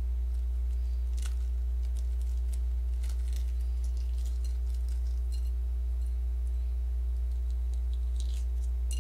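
Scattered faint crackles and clicks of a roasted egg's shell being cracked and peeled by hand, over a steady low hum.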